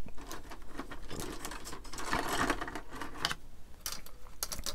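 Plastic model-kit parts and small tools handled on a workbench: a run of light clicks, taps and rattles, with a short rustle about two seconds in.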